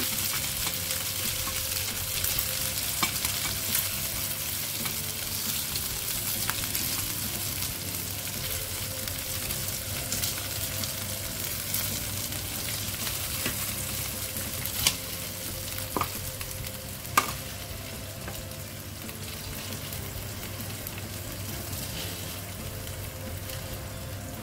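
Chicken pieces frying in hot oil in a pan, a steady sizzle that eases a little as they are turned and lifted out. A few sharp clicks in the second half.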